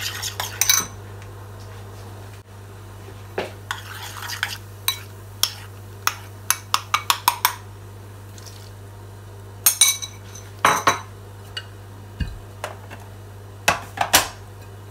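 A utensil stirring and clinking against a ceramic bowl and a glass mixing bowl of flour: a brief scrape, then many sharp clinks and taps, with a quick run of them a little past the middle and more clusters near the end.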